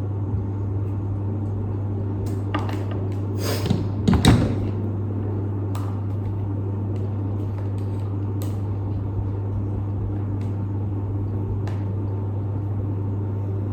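A steady low electrical hum throughout, with scattered small clicks and a couple of brief handling noises about 2.5 and 4 seconds in, as light wiring is connected.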